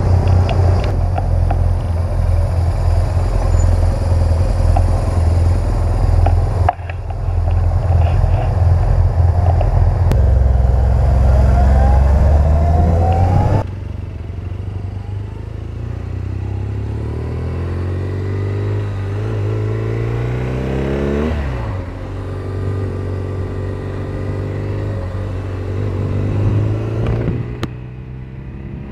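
BMW R 1200 GS boxer-twin motorcycle engine running under way, with a heavy low rumble and wind noise at first. The sound changes abruptly about 14 seconds in. After that the engine note climbs as the bike accelerates, drops sharply a little past the middle, and climbs again.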